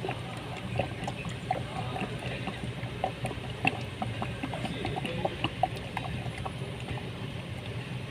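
Automatic transmission fluid gurgling down a long funnel into the filler tube, with many small irregular bubbling pops over a steady low hum.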